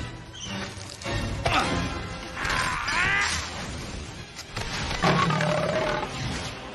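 Dramatic film score with an animated snow leopard character's roar; the music and the roar are loudest about five seconds in.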